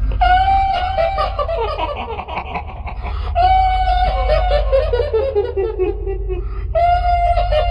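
Shrill, high-pitched woman's ghost laugh in the manner of the kuntilanak, heard three times. Each laugh starts with a long held 'hiii' and breaks into a falling, staccato 'hihihi' cackle, over a steady low drone.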